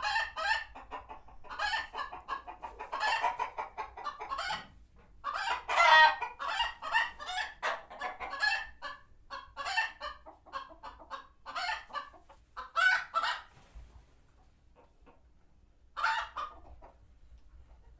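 A flock of chickens clucking and squawking in rapid, overlapping bursts, their alarm calls at a hawk passing overhead. The calling thins out about two-thirds of the way through, with one more short burst near the end.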